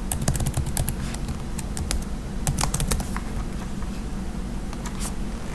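Typing on a computer keyboard: a quick, uneven run of key clicks over the first three seconds, then a single click near the end.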